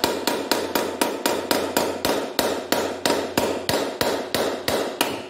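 Light, rapid hammer taps, about three to four a second, through a piece of wood held against the metal body of a Renault 1.5 dCi K9K diesel's EGR valve. The valve is stuck, and the taps are meant to shake it loose so it can be turned out.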